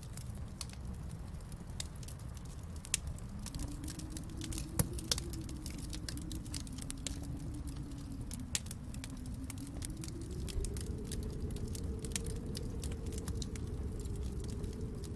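Wood fire burning in a fireplace: irregular sharp crackles and pops over a steady low rumble, with one louder pop about five seconds in.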